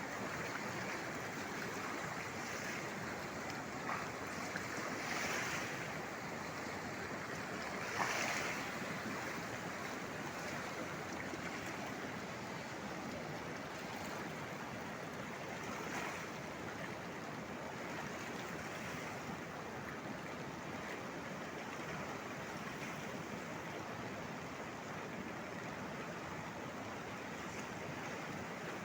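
Steady rush of a river in flood over the waterfall, an even roar of water, with a couple of brief louder swells in the first third.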